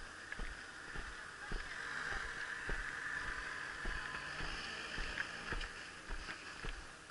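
Footsteps of someone walking with the camera, about two to three steps a second, over a steady hiss that grows louder in the middle.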